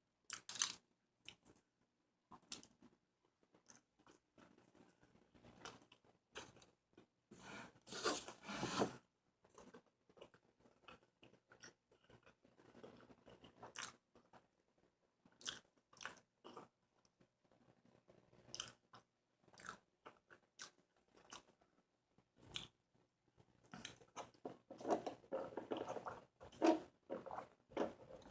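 Close-miked chewing and biting of a burger: faint, wet mouth clicks and crunches that come in scattered bursts, louder around eight seconds in and again near the end.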